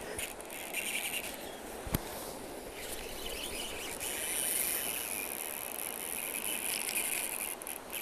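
Shallow rocky river running over boulders, a steady rush of water, with one sharp click about two seconds in.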